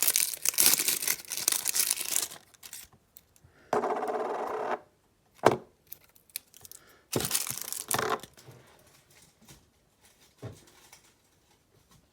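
Tearing and crinkling while rolls of adhesive tape and their packaging are pulled apart, in several bursts, one a steady rasp lasting about a second, with a couple of sharp clicks in between.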